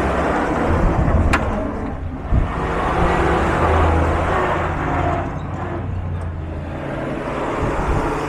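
Several WWII Dodge WC-series army trucks driving slowly past one after another, their engines running low and growing louder and fading as each goes by. A sharp click about a second in and a short knock just after two seconds.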